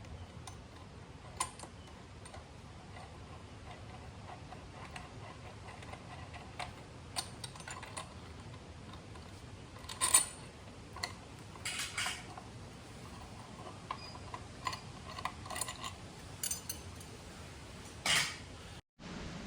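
Scattered light metallic clicks and clinks of hand tools and small metal parts being handled while the air cleaner assembly is taken off a motorcycle, with the loudest clinks about halfway through and near the end.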